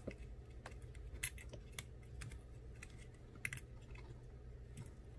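Irregular light clicks and ticks from a precision screwdriver and small screws against the iPhone 8's metal connector cover bracket as the screws are refitted, with a few sharper clicks about a second in and again past three seconds.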